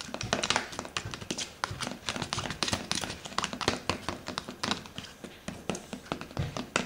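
A stirring utensil clicking and tapping quickly and irregularly against the sides and bottom of a thin plastic tub as chocolate syrup and maple syrup are mixed together.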